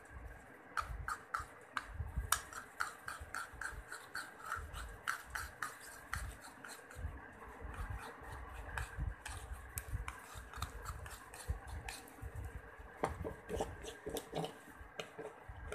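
Metal spoon stirring and scraping a thick paste of gram flour, lemon juice and aloe vera gel against the bottom of a small dish, in quick repeated strokes.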